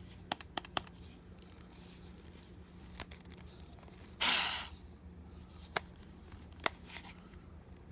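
Scattered sharp plastic clicks as a cordless power screwdriver's buttons and controls are pressed and worked, with one breathy exhale about four seconds in.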